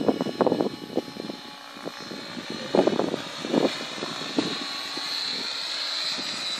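A 700-size radio-controlled helicopter in flight. A steady high whine comes from its rotor and drivetrain and swells a little near the end, with irregular short bursts of lower noise over it.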